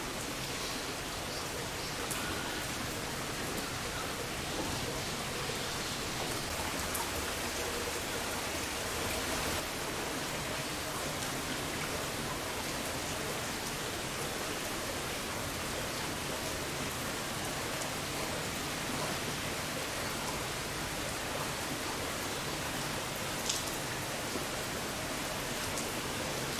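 Heavy rain from an approaching typhoon falling steadily, a constant hiss of drops, with a couple of faint ticks.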